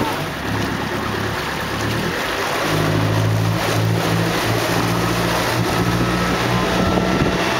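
A boat's engine running steadily under way, its low hum over wind and water rushing past the hull. The hum gets louder about three seconds in.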